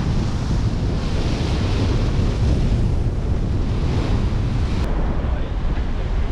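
Wind buffeting the microphone in a heavy low rumble, over the wash of sea waves that swell and fade.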